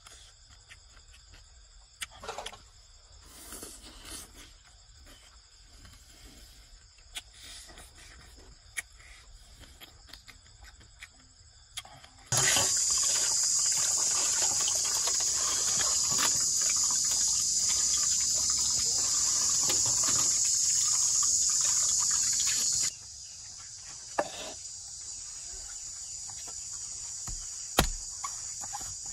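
Crickets chirp steadily throughout. From about twelve seconds in, for some ten seconds, hands scrub and slosh small shellfish in a basin of water, the loudest sound here, which then stops abruptly. Near the end a cleaver knocks sharply into a green coconut.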